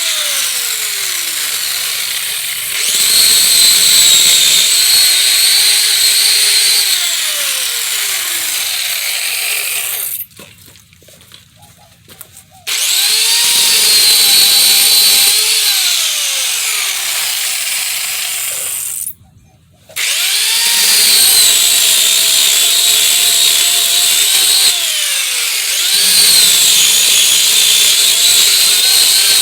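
Chainsaw running and cutting through thick dead bush branches, its pitch falling under load and rising again between cuts. It stops twice, for about two seconds about ten seconds in and briefly again about nineteen seconds in.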